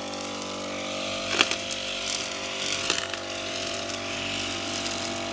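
Petrol brush cutter running at a steady speed while cutting grass and weeds, with two sharp clicks about a second and a half apart.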